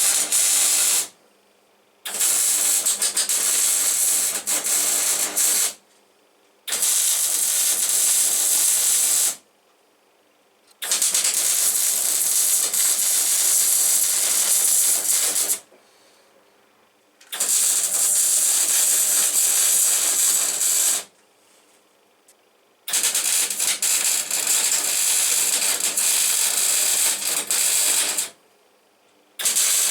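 MIG welding: the arc crackles and hisses in runs of several seconds, about six in all, each starting and stopping abruptly with short pauses between beads.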